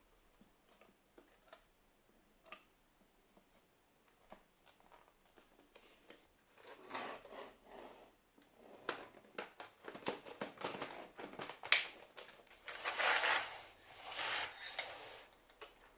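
Irregular clicks and rustling of objects being handled, sparse at first and busier in the second half, with one sharp click and a louder rustle just after it. No vacuum motor is running.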